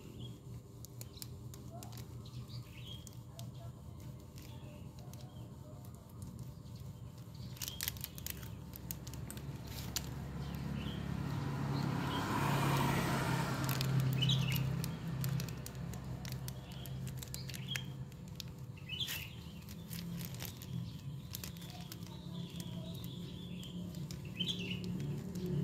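Plastic packaging of a new motorcycle battery's acid pack being handled, with scattered crinkles and clicks. Birds chirp in the background, and a low rumble swells and fades about halfway through.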